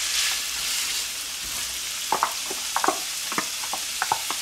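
Diced bacon and potatoes frying in clarified butter in a pan: a steady sizzle that is strongest in the first second, as chopped onions are tipped in. From about two seconds in, a run of light knocks and clicks sounds over the sizzle.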